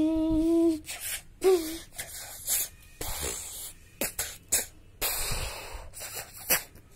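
A child's voice holds one drawn-out note for under a second, gives a short pitched sound a moment later, then a run of short breathy hisses and rustling noises.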